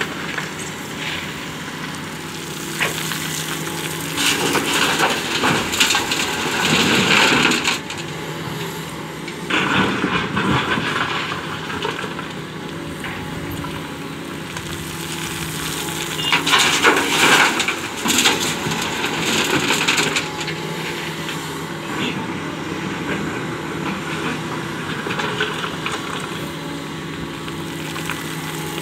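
Doosan crawler excavator's diesel engine running steadily under load while its bucket scrapes and crunches through sand and gravel in three loud stretches.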